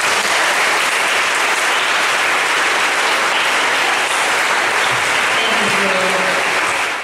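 An audience applauding steadily; the clapping cuts off abruptly near the end.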